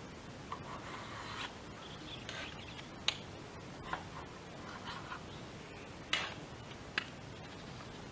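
Scattered light clicks and brief scraping sounds of hand work on a window sash during sealing. There are about half a dozen sharp ticks, the loudest about three seconds in and about six seconds in.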